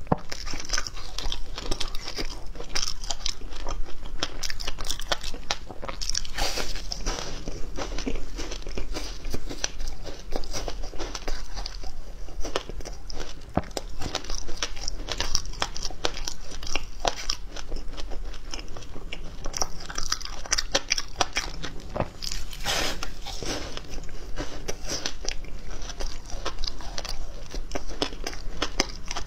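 Frozen passion fruit ice being bitten and chewed: a dense, continuous run of sharp cracking crunches as the ice breaks between the teeth.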